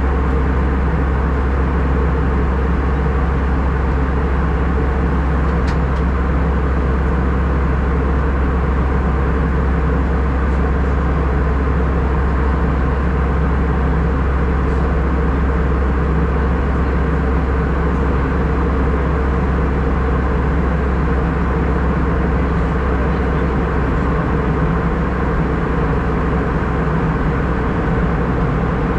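Steady cabin noise inside an Airbus A319 airliner: a constant low rumble of the jet engines and airflow, unchanging throughout.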